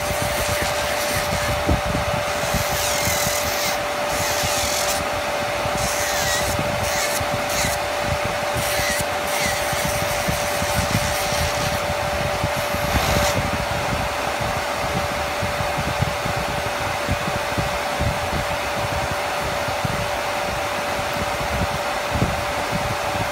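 Ravair 3-speed nail dust extractor's fan running loud and steady on its highest speed, a rushing noise with a steady hum. From about two and a half seconds in until about thirteen seconds, an electric nail file grinds an acrylic nail in short spells under it.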